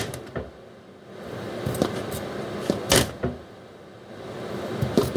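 Kitchen items being handled on a counter: a few short knocks and clatters, the loudest right at the start and about three seconds in, with rustling between them.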